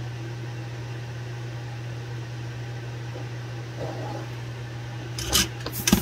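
Steady low hum while a soldering iron reheats a solder joint on a QS8 connector, which makes no sound of its own. Near the end there is a sharp knock and clatter as the iron is taken away from the joint.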